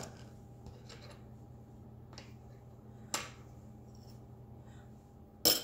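A teaspoon clicking sharply a few times as spice powder is spooned out for a marinade, the loudest click near the end, over a steady low hum.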